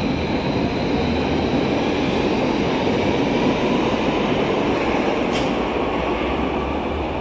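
Berlin U-Bahn U5 train pulling out of an underground station and running past close by: a steady heavy rumble of wheels on rails with a faint high whine. A brief sharp hiss sounds about five seconds in.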